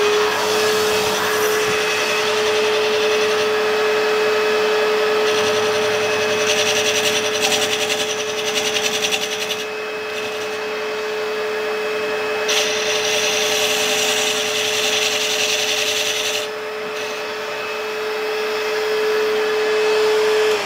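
Harrison 140 metal lathe running at a steady speed while the tool turns the outside diameter of a resin-impregnated fibre gear blank, a dry rasping cutting noise that swells in two stretches over the machine's steady hum. At the very end the spindle stops and the hum falls in pitch as the lathe winds down.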